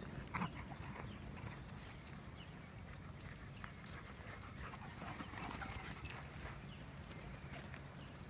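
Dogs playing and chasing each other on grass, with a few faint short whines over irregular thumps and scuffs.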